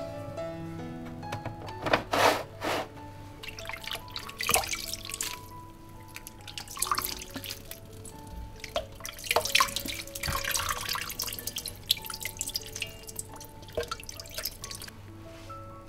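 Soft background music, with water splashing and dripping as mushrooms are rinsed in a plastic colander at a kitchen sink. The splashes come in several loud spells, about two seconds in, around four seconds, and a longer one around nine to eleven seconds.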